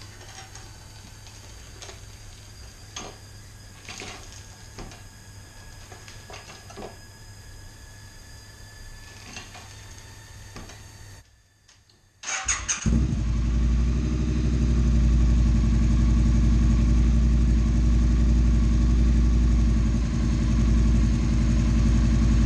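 Scattered faint clicks and knocks, then the Triumph Street Cup's 900 cc parallel-twin engine is started about halfway through: a brief crank, then it catches and idles steadily.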